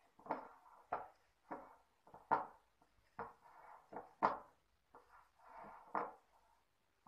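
A soft mixture of boiled mashed potato and shredded chicken being squeezed and mashed by hand in a bowl: a string of irregular squishing strokes, roughly one a second.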